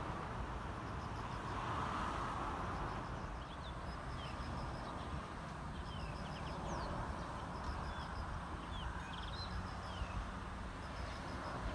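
Outdoor background of birds chirping, short downward-sliding calls scattered throughout, with a high chirp repeated in quick groups about once a second, over a steady low rumble.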